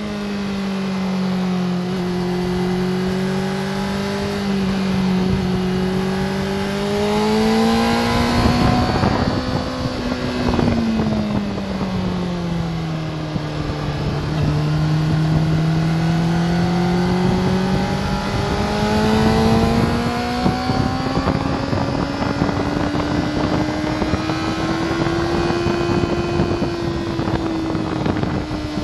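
Sport motorcycle engine heard from on board the bike, with wind rushing past. Its pitch holds fairly steady, then sinks as the bike slows through a corner about halfway. It then climbs steadily as the bike accelerates hard down a straight, levelling off near the end.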